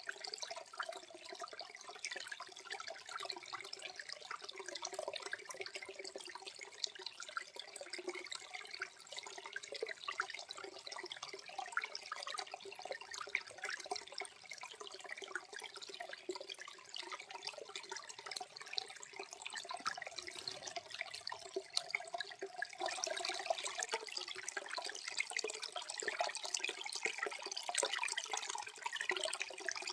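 Small waterfall at low flow, water splashing and trickling softly over rock, with many small drips and splashes in the steady flow; it gets a little louder and brighter about two-thirds of the way through.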